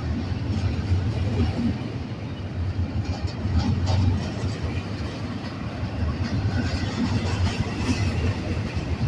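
Freight train rolling past: a steady low rumble with no horn sounding.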